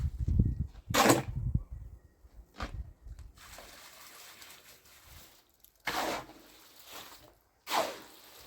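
Water sloshing and splashing in several separate strokes, the loudest about a second in, typical of clothes being hand-washed in a bucket.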